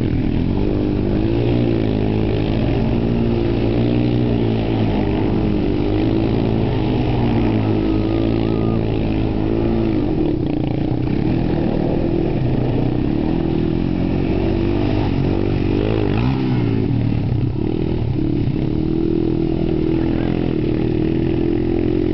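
ATV engines running and revving up and down continuously as the quads accelerate and slide across loose dirt.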